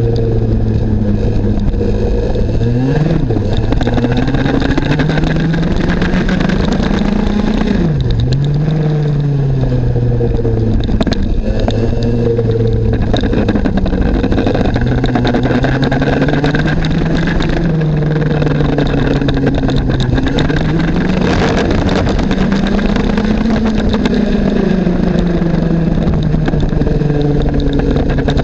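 IAME X30 Junior 125cc two-stroke kart engine at racing speed. Its pitch climbs on the straights and drops sharply twice in the first ten seconds as the throttle is lifted for corners, then rises and falls more gently.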